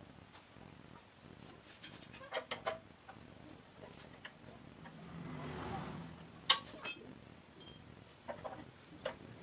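Short, sharp metallic clicks and knocks from hands and tools working on a Honda GX160 water pump engine's carburetor as it is taken off: three quick clicks, a louder single click midway, and a few more near the end. A chicken calls faintly in the background around the middle.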